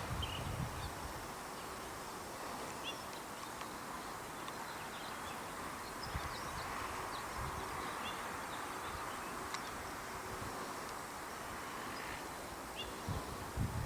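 Outdoor ambience: a steady hiss with scattered short bird chirps throughout, and low wind rumbles on the microphone near the start and again near the end.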